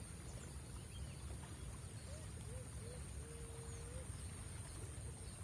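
Faint steady low outdoor rumble with a thin high whine over it. About two seconds in come three short rising-and-falling calls, then one longer held note lasting nearly a second.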